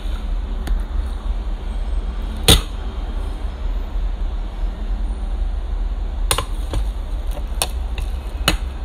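Eating utensils clicking against a rice bowl, a handful of sharp clinks with the loudest about two and a half seconds in, over a steady low rumble.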